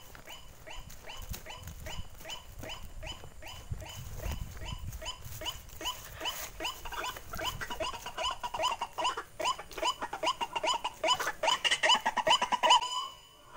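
White-breasted waterhen (ruak-ruak) calling: a long run of repeated croaking 'kruak' notes, about two a second at first, quickening and growing louder until they stop abruptly near the end.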